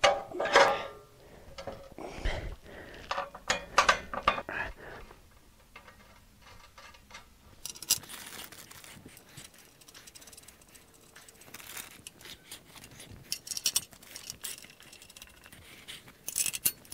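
Steel sawmill frame parts and bolts being handled and fitted by hand: a run of sharp metal clinks and knocks in the first five seconds, then softer rustling and light scattered clicks.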